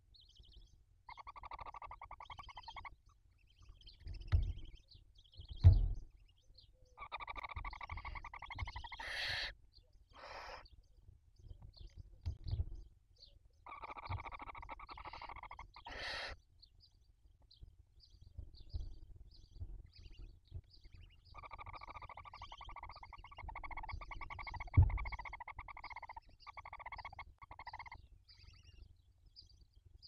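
Barn owls calling in a nest box while the chicks are being fed: four bouts of rapid, buzzy chittering, each one to several seconds long, with the longest near the end. A few dull knocks from the owls moving against the box come in between, the loudest just before halfway and near the end.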